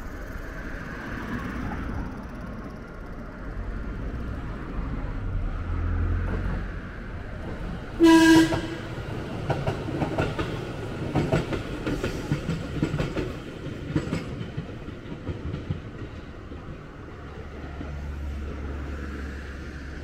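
A train horn sounds one short blast, then a JR electric commuter train runs past with its wheels clacking over the rail joints for several seconds.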